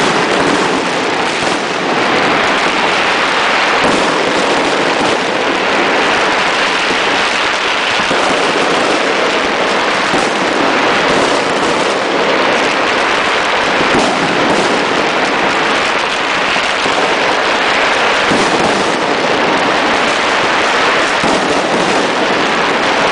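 Many fireworks and firecrackers going off at once in a continuous, dense crackle of overlapping bangs and pops, with no pause.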